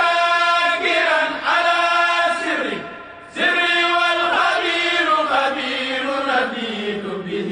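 A voice chanting an Arabic religious poem in long, held melodic phrases, with a short pause for breath about three seconds in.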